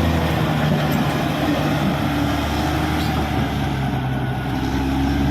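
CAT D6R XL bulldozer's diesel engine running steadily under load, its pitch shifting a little a few times.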